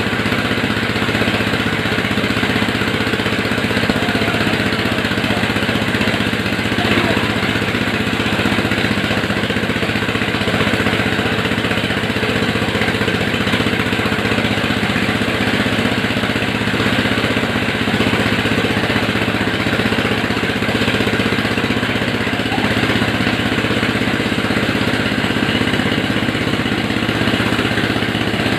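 Large engine-driven corn sheller running steadily under load while corn is fed into it: an even engine hum with the dense noise of the shelling machinery over it.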